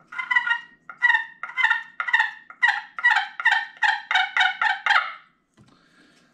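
Glass-faced turkey pot call with a black walnut soundboard, played with a striker: a run of about a dozen turkey yelps that come faster toward the end and stop about five seconds in.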